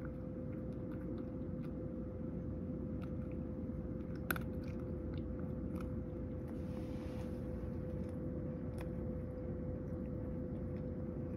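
House cat eating dry kibble from a bowl, crunching and chewing, with a few sharp clicks. A steady low hum with a faint steady tone runs underneath.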